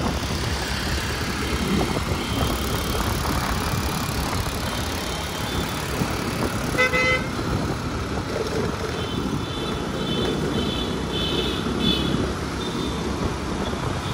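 Steady city traffic rumble with a short car horn honk about seven seconds in, followed by a run of short, higher-pitched beeps a couple of seconds later.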